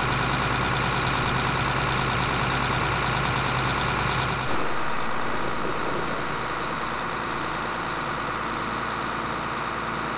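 John Deere 8640 tractor's six-cylinder diesel engine idling steadily, running again for the first time this year after its flat batteries were charged. About four seconds in, the deep hum drops away and the engine sounds a little quieter and farther off.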